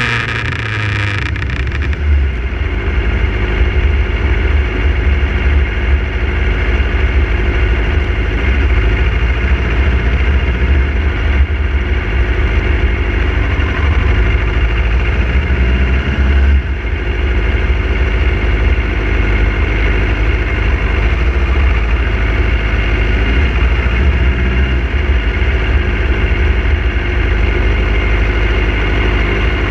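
Motorcycle engine running steadily at low revs while riding slowly; wind hiss on the microphone fades away in the first two seconds as the bike slows.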